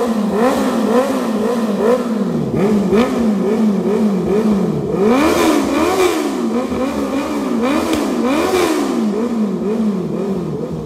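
Honda CB650R inline-four revved through an aftermarket full exhaust system in repeated throttle blips, the pitch rising and falling about twice a second. The revs are bigger and climb higher in the middle stretch.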